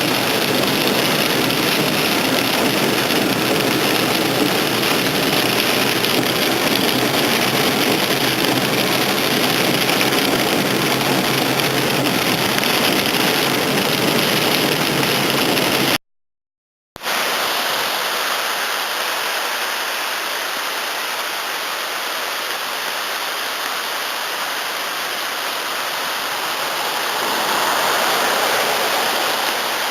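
Heavy thunderstorm rain pouring on a vehicle, a steady loud hiss with engine and road rumble underneath. After a cut about 16 seconds in, steady rain hiss continues without the low rumble.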